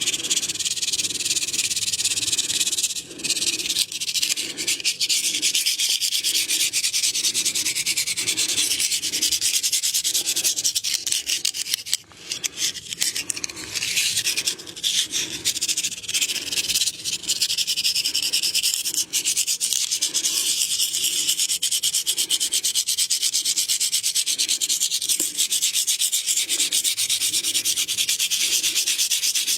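Hands rubbing and massaging skin close to the microphone, a dense scratchy rasp that pulses in a steady rhythm of about three strokes every two seconds.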